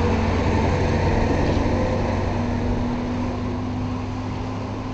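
Steady engine drone of a truck tractor unit pulling a long articulated passenger trailer as it drives past, the sound easing slightly toward the end.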